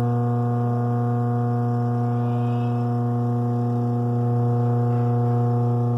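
Suggar Lavamax 10 kg tanquinho's electric motor running with a steady low hum while the agitator does not turn: the drive belt has slipped off the motor pulley, so the motor turns nothing.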